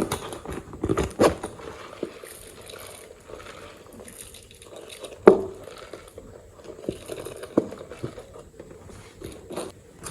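Slime being worked and mixed by hand: irregular wet clicks, squishes and small pops, with one louder pop about five seconds in.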